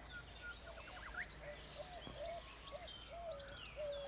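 Birds calling in the background: a short, bending whistled note repeated about twice a second, with higher chirps and quick trills from other birds over it.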